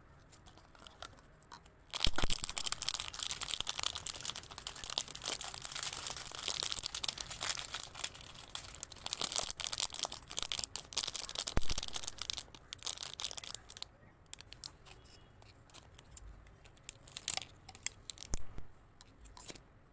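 Packaging being torn open and crinkled. A dense stretch of tearing and rustling starts about two seconds in, then thins to scattered crinkles and clicks for the last few seconds.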